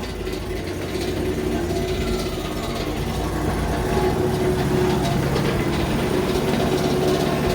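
Machinery running steadily: a low engine-like hum with a few steady tones, getting somewhat louder about three seconds in.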